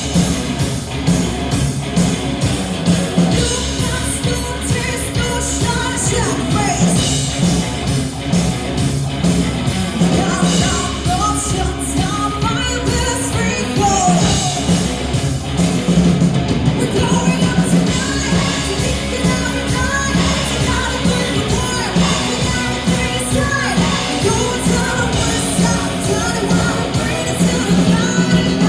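Live rock band playing a full song: drums, guitars and bass under a woman's singing voice, loud and steady throughout.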